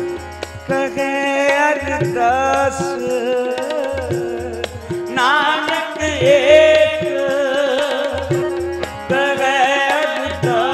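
Kirtan music: held harmonium chords with a tabla keeping a steady rhythm, and a singer's voice carrying drawn-out melodic phrases with no clear words.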